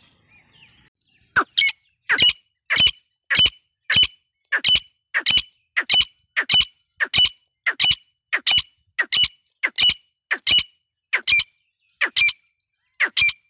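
A caged female partridge giving a long series of short, sharp squawking calls, about twenty, at about three every two seconds.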